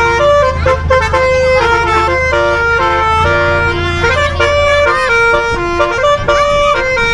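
Bus telolet horn, a set of electric air-horn trumpets, playing a fast tune of short stepped notes. A low engine rumble runs underneath and drops away about five seconds in.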